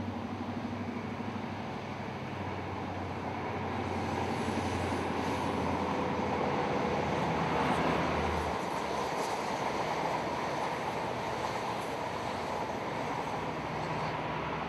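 InterCity 125 High Speed Train passing: the Class 43 power car's diesel engine gives a steady low hum under the rumble of wheels on the rails. The hum drops away about eight seconds in, as the train noise peaks and then eases off.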